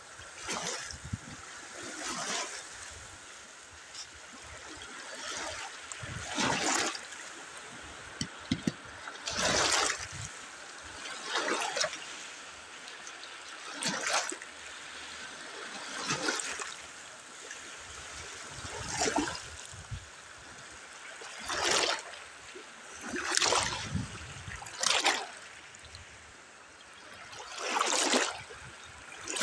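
Small choppy sea waves washing and splashing in over shoreline stones and reeds, a louder surge every two to three seconds.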